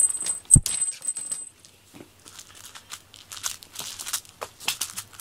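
Cat wand toy dragged and jerked across a fleece blanket: scratchy rustling and scraping in short bursts, with one sharp thump about half a second in and a thin high ringing over the first second or so.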